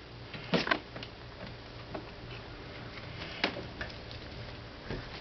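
Scattered taps and clicks of kittens' paws and claws on a carpeted cat tree as they play and scramble. There is a sharp pair of clicks about half a second in and another sharp click at about three and a half seconds, over a steady low hum.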